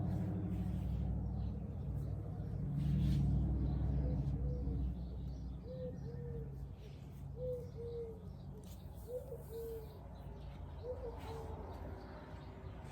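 A dove cooing in short paired low notes, one pair about every second and a half, starting about four seconds in. Under the first few seconds there is a low steady rumble that fades away about five seconds in.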